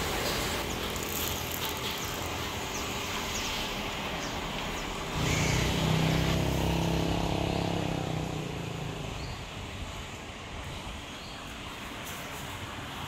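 Street traffic ambience, with a motor vehicle's engine starting suddenly about five seconds in as it passes close by, then fading away over the next few seconds.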